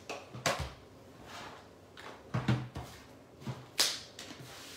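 A few separate knocks and clatters of items being handled and a plastic-packaged stamp set being put down on a wooden table; the sharpest comes near the end.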